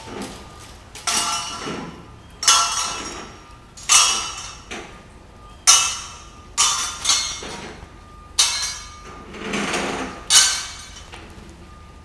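Metal tent pipes clanging against each other: about a dozen loud, ringing clangs at uneven intervals, each dying away over about half a second and echoing in the large metal warehouse.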